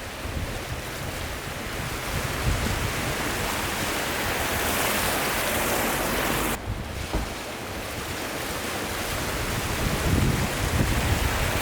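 Water rushing and sloshing around a 2019 Suzuki Jimny as it wades through a river crossing. The wash swells, drops suddenly about two-thirds of the way through, then builds again.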